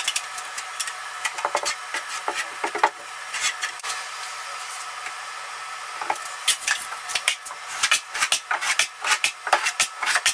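Steel trowel scraping thinset mortar, with short rasping strokes as mud is loaded off a mud pan and spread over membrane seams on the wall. The strokes are sparse for a few seconds in the middle, then come fast and close together in the second half.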